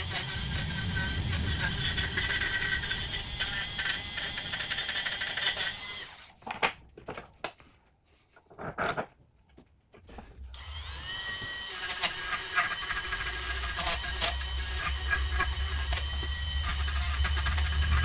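Dremel rotary tool with a small wire-brush attachment running against a rusty antique key, scrubbing off rust and scale. The motor stops about six seconds in, a few light knocks follow, and then it spins back up with a rising whine and keeps brushing.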